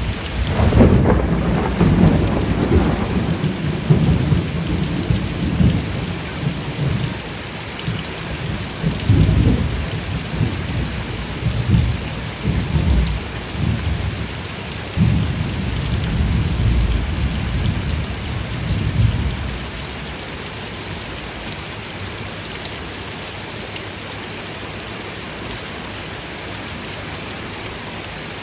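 Steady rain with a long rolling rumble of thunder that starts about a second in, swells several times and fades out after about twenty seconds, leaving only the even hiss of the rain.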